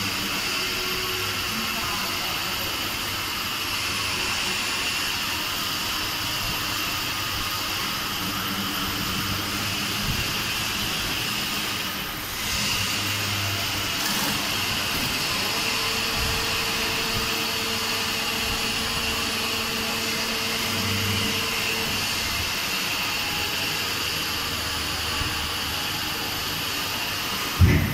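Servo-driven hydraulic powder compacting press running: a steady hiss and high whine, with a lower hum that comes and goes as the press cycles.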